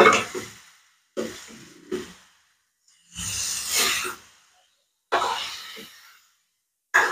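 Steel ladle scraping and knocking against a metal kadai as chicken pieces frying in masala are stirred, in about five separate strokes.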